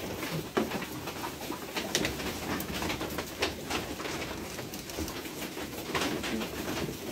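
Goats feeding at a trough of dry chopped forage: rustling and crunching of the straw, with scattered sharp knocks of hooves and heads against the wooden and metal trough as one goat climbs into it.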